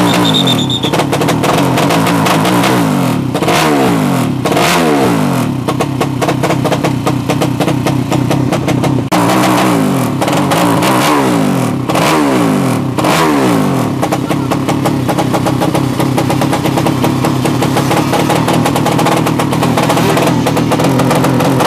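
A drag-racing underbone motorcycle engine running loud and being revved in quick throttle blips, each falling back in pitch. The blips come in a cluster a few seconds in and another around halfway, after which the engine holds a steadier running note.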